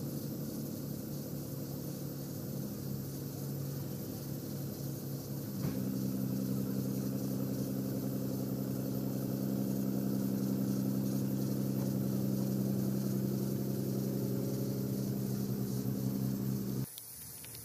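A vehicle engine idling with a steady low hum. About six seconds in its note steps up and grows a little louder, and near the end it cuts off abruptly.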